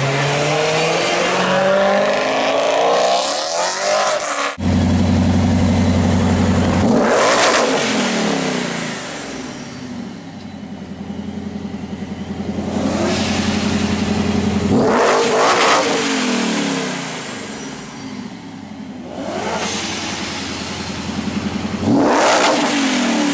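High-performance cars accelerating and driving past one after another, each engine note rising and then dropping away as it passes. A steady low engine drone starts abruptly about four seconds in and runs through the middle.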